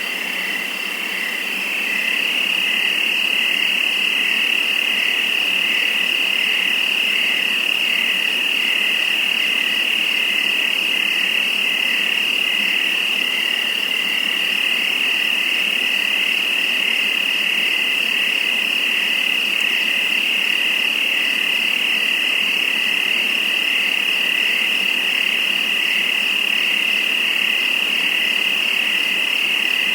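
Dense chorus of crickets trilling at nightfall, a steady high-pitched drone with faster pulsing chirps layered above and below it. It swells up over the first two seconds, then holds steady.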